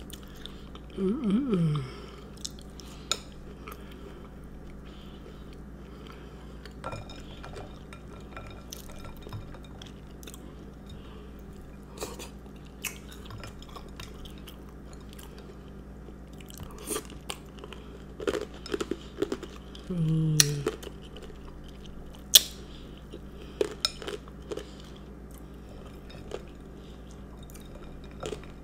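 Close-miked eating of a chocolate chip cookie with milk: sparse wet chewing and mouth clicks with a few sharper clicks and clinks. A short hum falls in pitch twice, about a second in and about two-thirds through.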